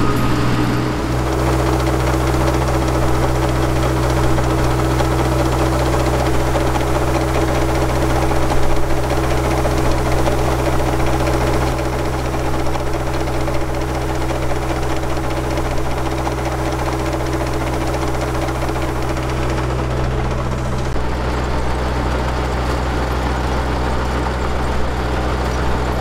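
Combine harvester's diesel engine running steadily, with a slight change in its tone about three-quarters of the way through.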